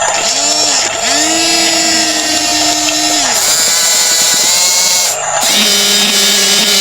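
Electric gear motors of a radio-controlled bulldozer whining, their pitch ramping up, holding steady and dropping off again several times as the machine starts and stops moving.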